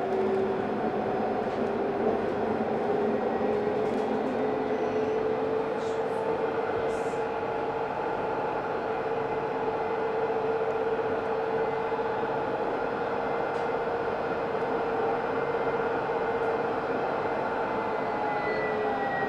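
Alstom Citadis tram running at speed, heard from inside the front of the car: a steady electric traction-motor whine over wheel and rolling noise. The whine rises a little in pitch over the first few seconds and eases down near the end.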